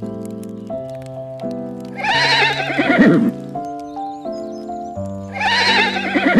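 Horse neighing twice, each a loud wavering whinny that slides down in pitch over about a second. The first comes about two seconds in and the second near the end. Background music with a steady chord pattern plays throughout.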